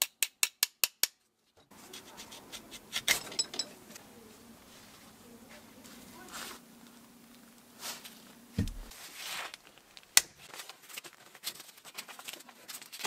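Rusty steel blade-guard parts of a Makita 4190D cordless circular saw being worked with hand tools. There is a quick, even run of metal clicks in the first second, then scattered clinks and taps of small metal parts, the sharpest about ten seconds in. A faint low hum runs through the middle.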